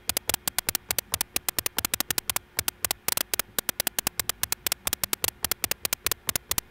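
Rapid, uneven stream of very short white-noise clicks, several a second, synthesized in Pure Data: each pad press on a MIDI controller fires a noise burst that drops to silence in about 10 ms, giving a crackle like a fireplace.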